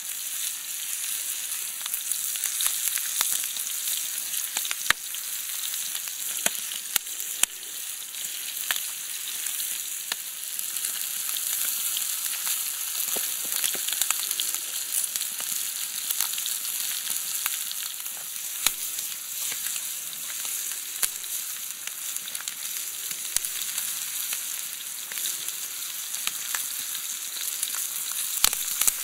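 Whole rainbow trout frying in a pan over a wood campfire: a steady high sizzle dotted with frequent sharp pops.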